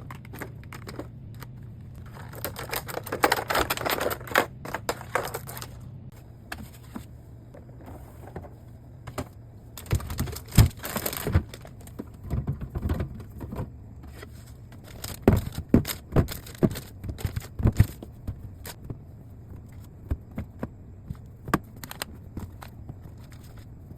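Groceries being handled and put away: packaging rustles and crinkles in two bursts, then containers clunk and knock several times as they are set down. A low steady hum runs underneath.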